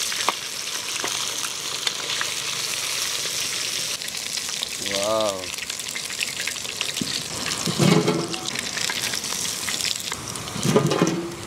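Batter-coated fish pieces deep-frying in hot oil in a kadai: a steady sizzle.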